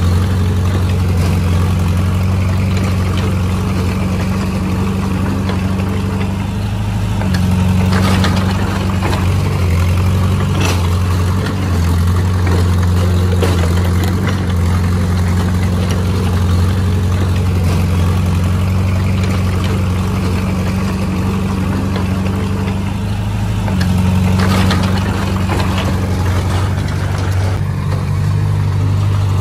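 Heavy earthmoving machine's diesel engine running steadily, its note and load shifting about a quarter of the way in and again near the end, with a few brief sharp sounds over it.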